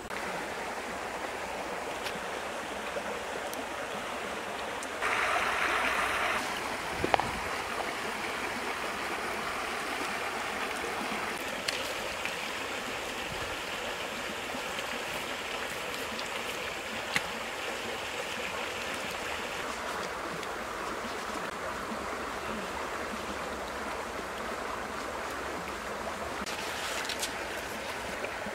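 Shallow river flowing over rocks, a steady rushing hiss, briefly louder about five seconds in, with a few sharp clicks here and there.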